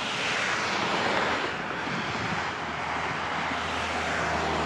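Approaching diesel railcar: a steady low engine hum growing louder, under a broad rushing noise that swells and fades.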